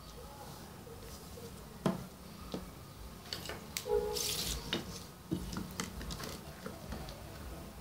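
Small wooden strips and hand tools set down and handled on a tabletop: a string of light knocks and taps, with a brief sliding hiss about four seconds in.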